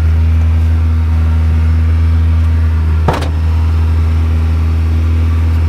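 1992 Honda Civic engine idling steadily as it warms up, running with the exhaust silencer removed. A single sharp knock comes about three seconds in.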